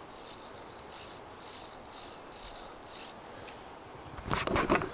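Even swishing rubs about twice a second, as of someone walking through thick undergrowth, then a louder crackling rustle just over four seconds in.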